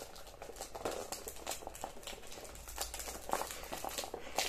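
Cardboard perfume box and its packaging being handled: an irregular run of rustles and light clicks and taps.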